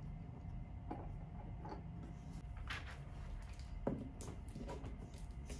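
Small plastic toy figures and Kinder Joy egg capsules being handled on a tabletop: a few light clicks and taps, with one sharper knock about four seconds in.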